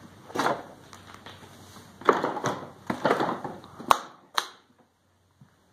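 Footsteps crunching over scattered wood offcuts on a wooden floor, several uneven steps, followed near the end by two sharp clicks. Then the sound cuts off suddenly.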